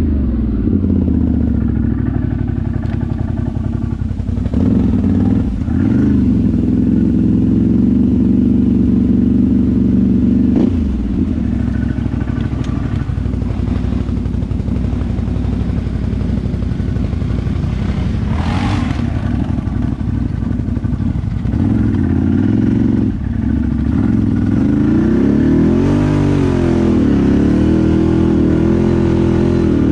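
ATV engine running under load, its pitch rising and falling again and again as the throttle is opened and closed. A short hiss cuts in about two-thirds of the way through.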